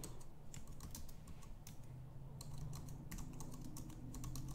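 Faint, irregular clicking of computer keyboard keys being typed, over a low steady hum.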